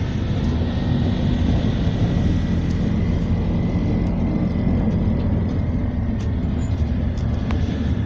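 A moving road vehicle: a steady engine hum under continuous road and tyre rumble, with a faint steady high whine.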